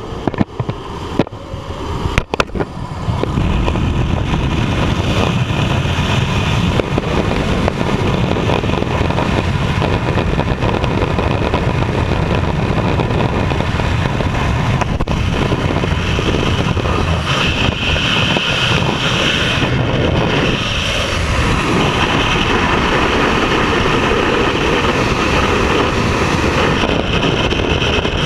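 A few knocks against the camera, then the loud steady rush of the jump plane's engine and propeller with wind blasting across the microphone at the open door; after exit, the same wind rush of freefall.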